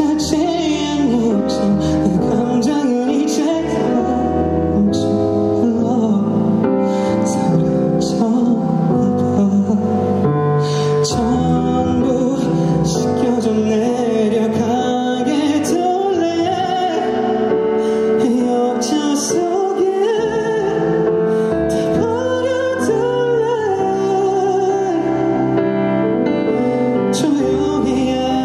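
A solo singer singing live into a handheld microphone over band accompaniment, the melody moving in long held notes with vibrato.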